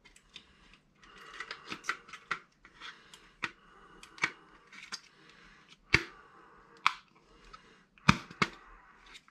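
Irregular light clicks and taps of small hard objects being handled, with a few sharper knocks about six, seven and eight seconds in.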